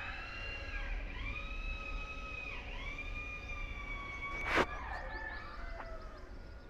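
Siren holding a high tone that dips and swings back up about every second and a half, fading in the second half, with one sharp click a little past the middle.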